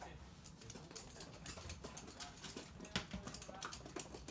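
Toy poodles' claws clicking and pattering on a hard wooden floor as they run, faint and irregular, with one sharper click about three seconds in.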